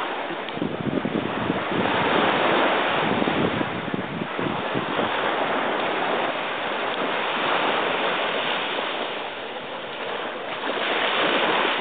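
Small waves washing onto a sandy beach, a steady rushing noise that swells and eases, with wind on the microphone.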